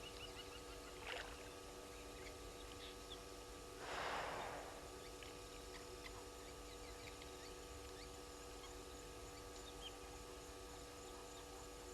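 A hippo in the dam making a short rush of splashing water, a faint one about a second in and a louder one about four seconds in, over a steady hum with faint chirps.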